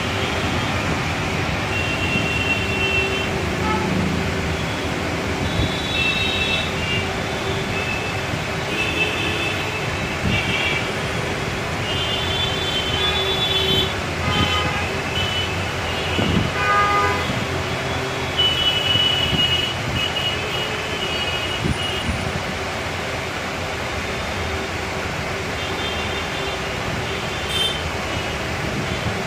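Road traffic noise with vehicle horns tooting again and again in short notes.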